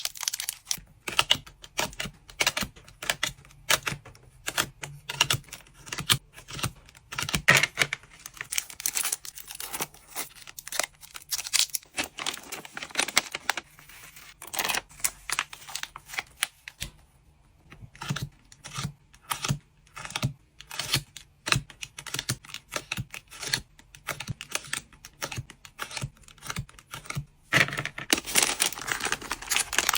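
Trading cards and plastic packaging handled at close range: a quick, irregular run of small clicks and taps with crinkling, pausing briefly midway and growing denser and more crinkly near the end.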